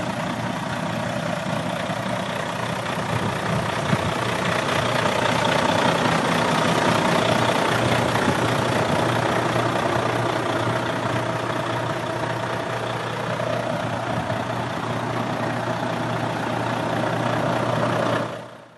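Volvo FM13's 13-litre six-cylinder diesel engine idling steadily, fading out near the end.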